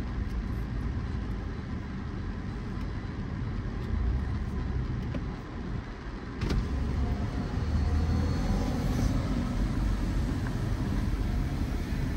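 A car's engine running with a steady low rumble, with a single sharp knock about halfway through, after which the rumble is a little louder.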